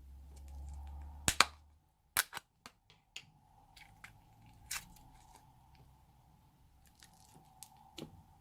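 Slime being mixed and squeezed by hand, giving sharp pops and clicks as air pockets burst. The loudest pair comes about a second and a half in, and fewer, softer pops follow.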